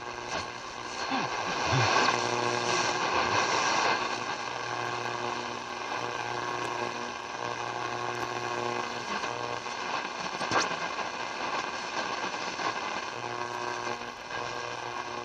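Zenith Trans-Oceanic shortwave radio's speaker giving a steady buzzing tone over static hiss, from a signal the listener takes for a weather transmission; it swells and weakens a little.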